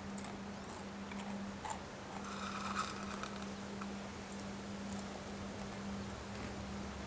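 Wind noise with a steady low hum and scattered small clicks and taps, with a short squeak about two and a half seconds in and more low rumble near the end.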